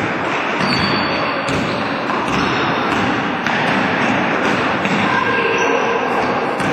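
Basketball thudding on a wooden gym floor during play, over a steady echoing din of the hall, with a few short high squeaks about a second in and again near the end.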